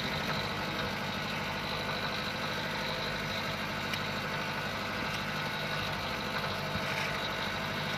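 Boat engine idling steadily, a constant low drone with an even pulse.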